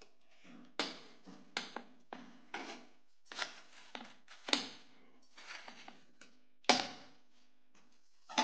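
Wooden spatula scraping and knocking against a metal rolling board, working a sticky mound of peanut-and-sugar chikki mixture. It makes a string of short, irregular scrapes about once a second, with the sharpest knock near the end.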